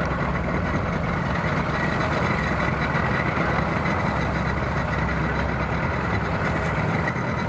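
Engines running steadily at idle: a low, even rumble with a faint steady high tone above it.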